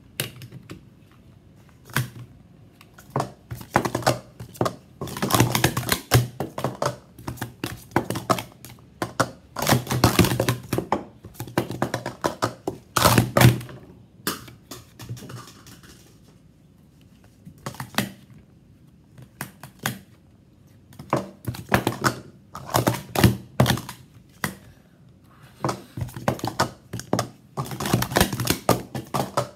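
Plastic sport-stacking cups clacking as they are stacked up and down in quick runs, bursts of rapid clicks and knocks lasting a second or few, separated by short pauses.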